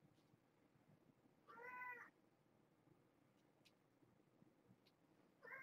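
Cat meowing twice: one short meow about a second and a half in, and another near the end.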